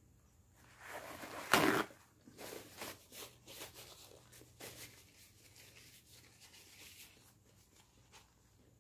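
A paper towel sheet torn off the roll in one loud rip about a second and a half in, followed by soft paper crinkling and rubbing as hands are wiped with it.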